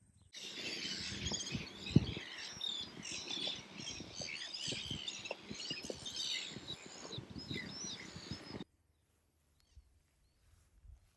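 Black-billed gull colony calling: many overlapping short, high calls, over a gusty low rumble with a sharp thump about two seconds in. The calling stops suddenly near the end.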